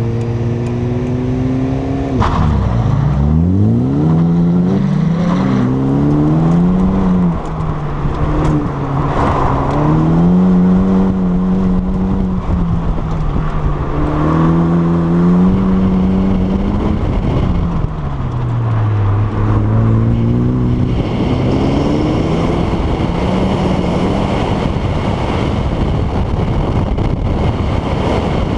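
Ford Focus engine heard from inside the cabin during a timed autocross run. It is held at steady revs at first. About two seconds in, the revs dip sharply and climb again as the car launches. After that the engine note rises and falls over and over as the driver accelerates and lifts through the cones.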